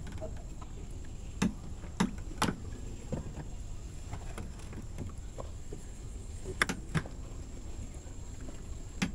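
Irregular knocks and taps, about half a dozen sharp ones, over a low steady rumble: fishing gear being handled while a hooked fish is brought up out of the water.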